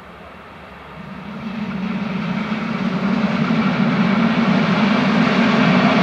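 Approaching diesel-hydraulic push-pull train, a DB class 218 locomotive pushing its coaches, growing steadily louder from about a second in. A steady low engine drone runs over rising wheel and rail noise.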